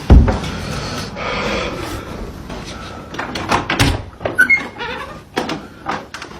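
Indoor banging: a heavy bang right at the start, a second thump about four seconds in, and lighter knocks and clicks between them.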